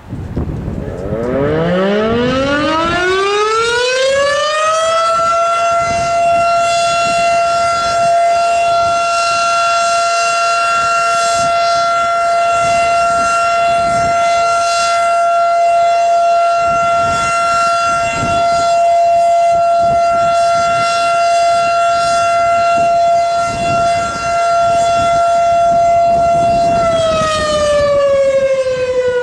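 Model 5 mechanical civil defense siren sounding a short-alert test: it winds up over about five seconds to one steady high tone, holds it for about twenty seconds, then begins to wind down near the end.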